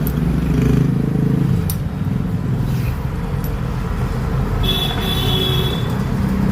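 Road traffic passing close by: a steady low rumble with a vehicle engine swelling about a second in, and a high-pitched steady tone lasting just over a second near the end.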